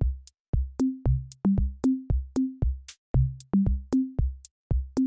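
Background music: an electronic beat of short, low pitched notes, each starting with a click, in a quick rhythm.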